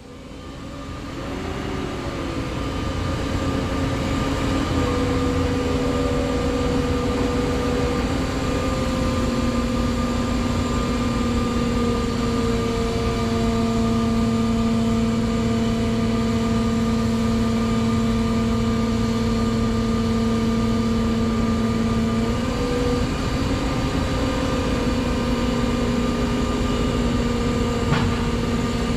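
Mobile crane diesel engine revving up and then running at high, steady revs with a whine while the cranes hold a suspended locomotive body. The pitch dips briefly about three-quarters of the way through and recovers, and a single sharp click comes near the end.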